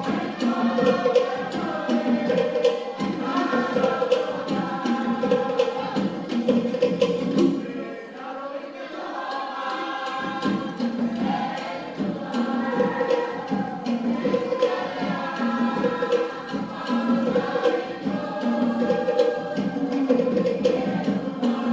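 A Cook Islands group singing together in chorus over a steady drum beat. The drumming drops out for about two seconds midway while the voices carry on, then comes back in.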